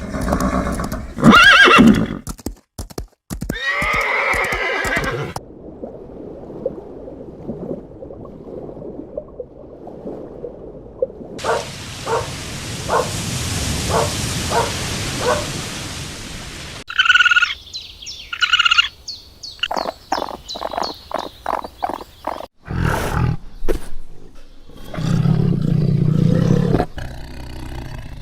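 Horses neighing in a string of short separate clips, with stretches of regular hoofbeats between the calls.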